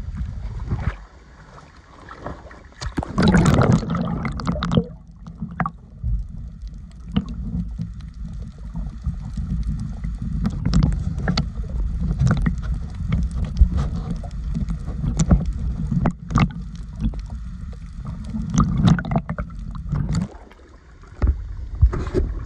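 Sea water sloshing and splashing around a phone in a waterproof case as it dips under the surface and out again, muffled by the case, with a steady low rumble and many sharp splashes or knocks. A louder stretch of splashing comes about three seconds in.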